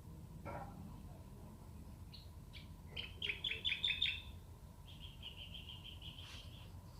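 A small bird singing: a quick run of about six sharp chirps about three seconds in, then a rapid trill lasting about a second and a half.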